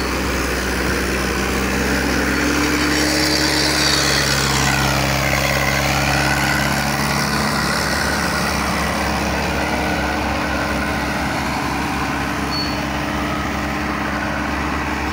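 Sonalika DI-750 tractor's freshly overhauled diesel engine running steadily under load while pulling a rotavator through the soil.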